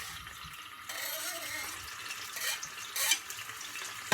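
Chopped tomatoes sizzling in hot sunflower oil in a frying pan: a steady hiss with a couple of louder spurts about two and a half and three seconds in.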